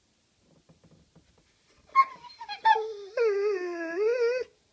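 Dog crying out: a short yelp about two seconds in, then a long wavering whining howl that dips and rises in pitch and cuts off suddenly near the end. The dog is fretting at workers on the roof.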